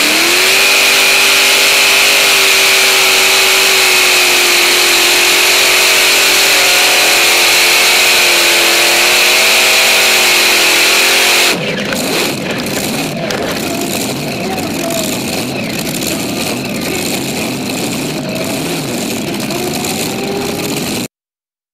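Four supercharged Hemi V8 engines of a multi-engine pulling tractor at full throttle during a pull. A steady high engine note after a quick rise at the start. About eleven and a half seconds in the note drops sharply and turns rough and quieter as the throttle comes off, until the sound cuts off suddenly near the end.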